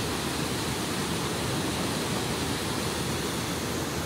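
Twin Falls waterfall rushing as a steady, even roar of white water.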